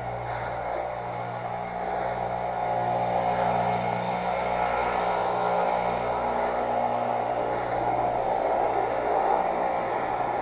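Northrock XC00 fat bike's wide tires rolling through fresh, unpacked snow: a steady rushing noise over a steady low hum, growing a little louder about two seconds in.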